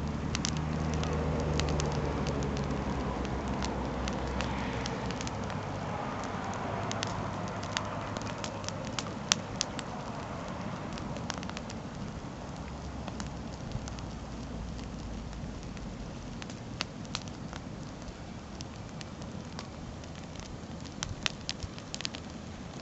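Campfire of burning wood crackling, with irregular sharp pops, a couple of them louder. A low steady hum underlies the first half and fades away.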